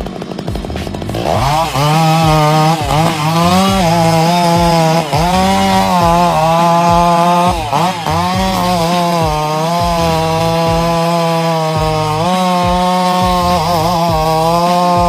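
Chainsaw revving up about a second in and cutting pine wood, running at a high steady pitch that dips briefly every second or two as the chain bites into the wood.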